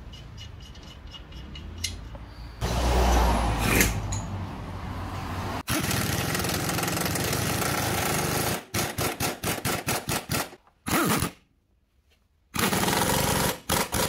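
Pneumatic impact wrench hammering bolts tight while the new lower control arm is fitted to the front suspension. It runs in one long burst from about three seconds in, then gives a string of short trigger bursts, stops for about a second, and runs again near the end.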